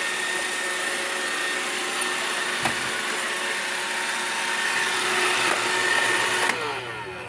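iRobot Roomba 675 robot vacuum running with a steady whirring hum, with a single knock about two and a half seconds in. About six and a half seconds in it shuts off suddenly and its motors wind down with a falling whine.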